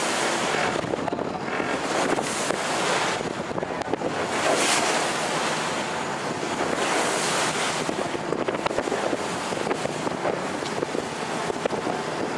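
Wind buffeting the microphone over the wash of choppy harbour water: a steady rushing noise that swells and eases every second or two.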